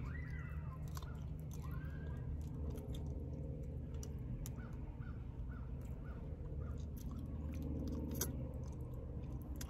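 A person chewing and biting while eating chicken wings and fries, with small wet mouth sounds and clicks, over a steady low hum.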